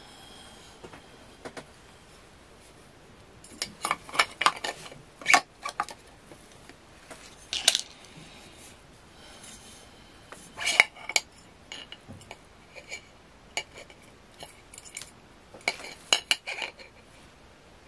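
Clicks, taps and scrapes of hard plastic and aluminium parts being handled and fitted together as an Atomstack air-assist pump's motor and plastic pump head are slid into its metal tube housing. The knocks come in short clusters, the busiest about four to five seconds in, near eleven seconds and near the end.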